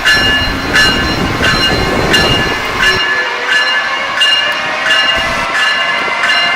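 Railroad crossing bell ringing in even strikes, about one and a half a second, over the low rumble of a train that drops away about three seconds in.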